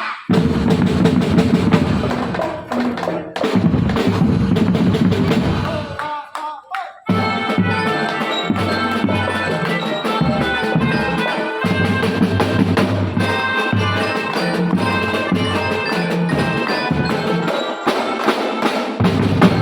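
School marching drum band playing: drums and percussion under bright melodic parts. The music drops away briefly about six seconds in, then the full band comes back in.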